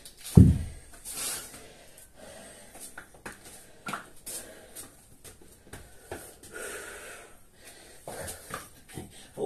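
Heavy, wheezing breaths of a man winded after kettlebell swings and burpees, with small taps from hands and feet on the mat. About half a second in, a deep heavy thud as a 53 lb kettlebell is set down on the rubber floor mat.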